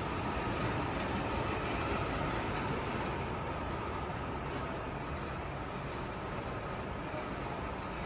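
Steady background noise of a large indoor hall, an even rumble and hiss with no distinct events.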